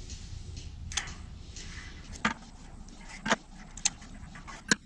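Pliers working steel woven-wire fence wire, giving about five sharp metallic clicks a second or so apart as the wrapped knots are twisted loose and stripped off.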